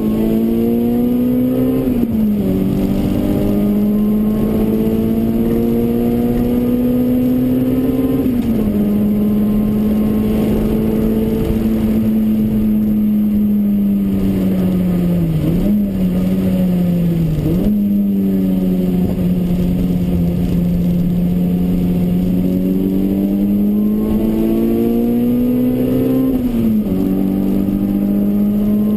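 Toyota Corolla AE93's 4A-GE 20-valve four-cylinder engine under hard acceleration, heard inside the cabin. The note climbs steadily and drops sharply at upshifts a couple of seconds in, about eight seconds in and near the end; midway it falls away and jumps back up twice as the car downshifts for a corner.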